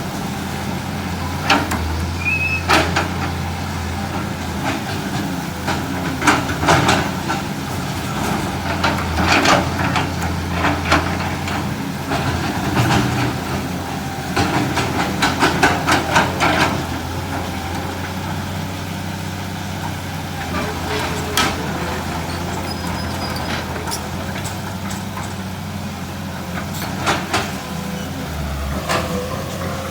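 A 320 hydraulic excavator's diesel engine running steadily under load while it pries out eucalyptus stumps. Repeated sharp knocks and cracks, densest in the first half, come from the bucket and the stumps and roots breaking.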